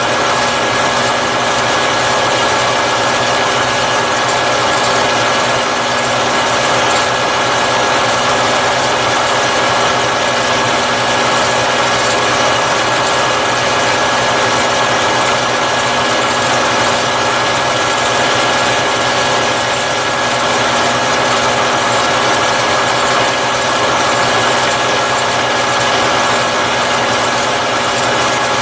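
Vertical milling machine running steadily, its end mill cutting a step into a timing-chain cam gear as the gear is turned slowly under it on a hand-cranked rotary table. The gear is being machined to take a Torrington cam thrust bearing.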